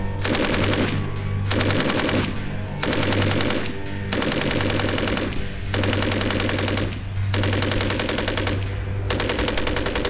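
Bursts of automatic fire from a SAR 762 MT belt-fed 7.62×51 mm NATO machine gun: about seven bursts of roughly a second each, separated by short pauses, over background music.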